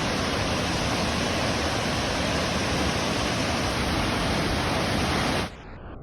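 Waterfall: a steady, loud rush of falling water that cuts off abruptly near the end.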